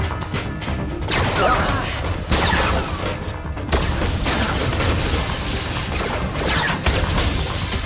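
Action-scene sound effects of blasts and showering sparks, with sudden loud crashes about one, two and a half, four and seven seconds in, over a low rumble and a dramatic music score.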